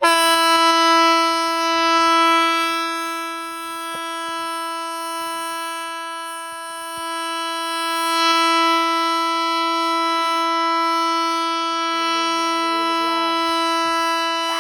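Hesa Fredrik civil defence warning siren sounding one loud, steady unbroken tone that starts suddenly. A single continuous tone of this length is the Swedish "Faran över" all-clear signal.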